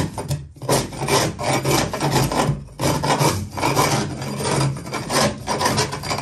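A scraper on a long pole scraping leftover foam off the fiberglass bottom of a boat, in quick, uneven strokes of about two a second.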